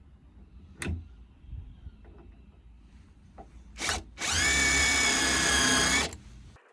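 Electric drill running: a short trigger blip, then about two seconds of steady motor whine that rises briefly as it spins up and cuts off. A single sharp knock comes about a second in.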